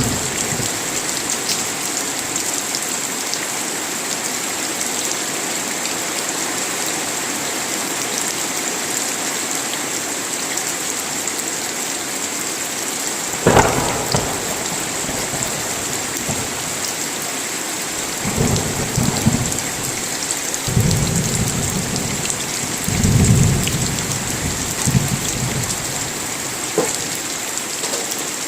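Steady heavy rain, with a sharp thunderclap about halfway through and several low, rolling thunder rumbles in the last third.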